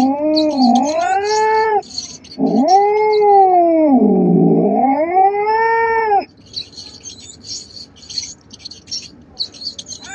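A cat caterwauling: two long, drawn-out yowls that swing up and down in pitch, the second held for nearly four seconds. Faint, rapid, high-pitched scratchy bursts continue behind the calls and after them.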